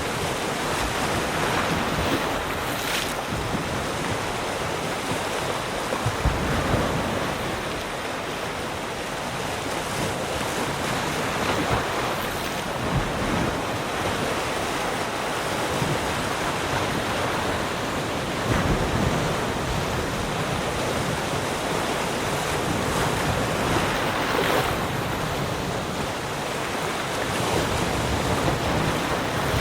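Sea surf: waves washing onto the shore in a continuous rush, swelling and easing, with a few louder breakers, and some wind noise on the microphone.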